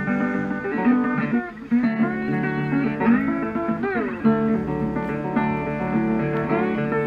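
Background music led by guitar, a blues-style tune with notes bending up and down.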